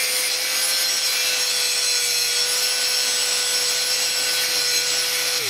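Angle grinder running with its disc grinding against a steel rod that is spun by an electric drill, an improvised lathe turning the shaft down to a smaller diameter. Steady motor whine under a harsh grinding hiss, and a motor winds down right at the end.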